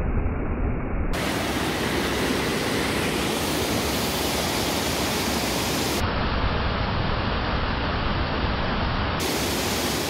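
Waterfall water rushing and splashing over rocks and a stepped cascade, close to the microphone: a steady, loud rush whose tone changes abruptly a few times.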